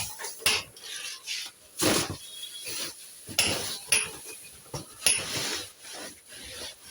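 Irregular rustling and knocking from packing straw and cardboard boxes being handled during packing, in short separate bursts.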